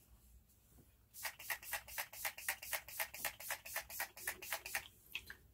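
ColourPop Pretty Fresh setting mist bottle spritzing in a fast even run of short hissing sprays, about seven or eight a second, starting about a second in and stopping near the end.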